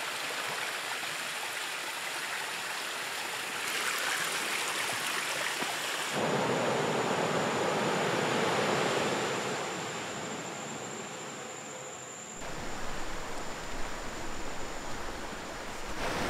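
A small stream running over mossy rocks: a steady rush of water. It changes abruptly a few times and is fullest from about six seconds in. A faint, steady high-pitched tone runs through much of it.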